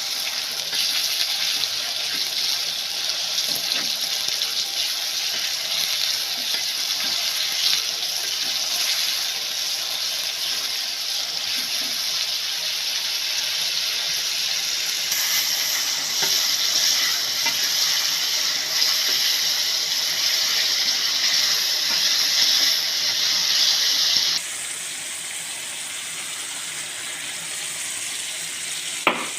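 Steady running water, as from a kitchen tap, dropping suddenly to a quieter hiss about 24 seconds in, with a couple of sharp clicks near the end.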